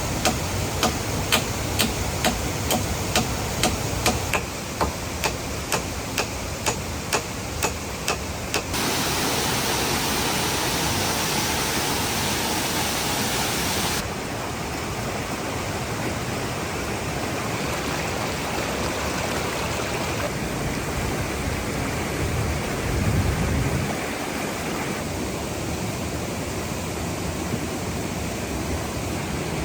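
Waterfall water rushing as a steady, even noise, its tone jumping abruptly a few times. In the first nine seconds a rapid series of sharp knocks, about two a second, sounds over the water.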